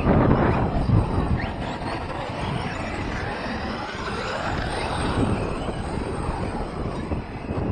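Radio-controlled trucks racing on a loose dirt track: their motors whine up and down in pitch as they accelerate and slow, over a continuous rushing noise of tyres and wind on the microphone.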